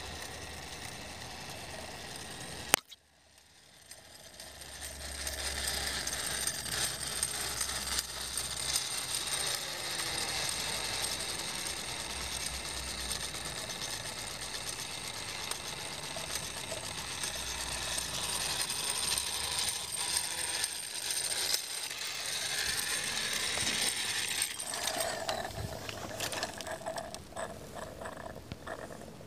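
Wilesco D36 toy steam vehicle running under its own steam, with a fast, steady mechanical clatter and hiss from its small engine and gearing. There is one sharp click about three seconds in, then a brief drop in the sound before the running noise builds up again.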